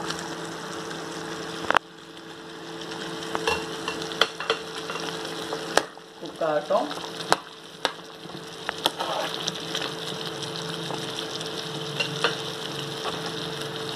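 Thick tomato-butter gravy bubbling and sizzling in a kadai while paneer cubes are stirred through it with a spatula, with a few sharp knocks of the spatula against the pan. A steady hum runs underneath.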